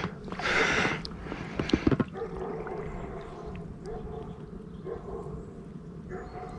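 A hooked wels catfish splashing and swirling at the surface within the first second, with a few sharp knocks near two seconds in, then quieter lapping water.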